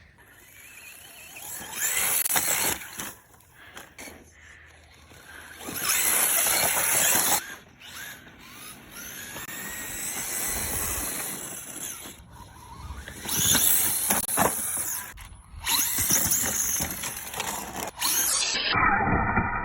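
RC car's motor whining in repeated bursts as it speeds up and slows, its pitch rising and falling, with several loud surges across the stretch.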